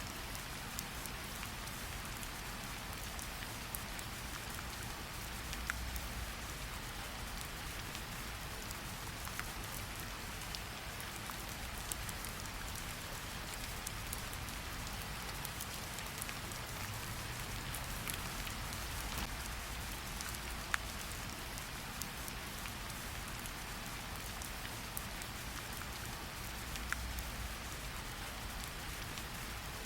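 Rain and wood-fire ambience: a steady hiss of rain with scattered sharp crackles and pops from a burning fire.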